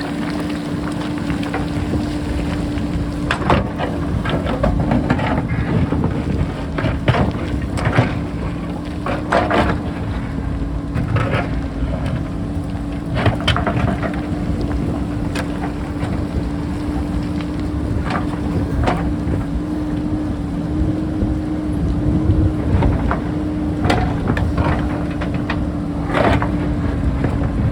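JCB backhoe loader's diesel engine running steadily, with irregular knocks and scrapes as the bucket digs into rock on the hillside.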